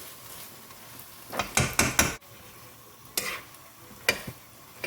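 Fried chicken, peppers and pineapple being stirred through sizzling sweet and sour sauce in a pan on very high heat: a steady sizzle under sharp scrapes and knocks of the utensil against the pan, a quick run of them between one and two seconds in, then two single ones.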